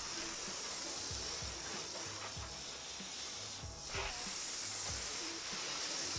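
Garden hose pistol-grip spray nozzle spraying water onto a vehicle's side window glass: a steady hiss that eases briefly about two thirds of the way through.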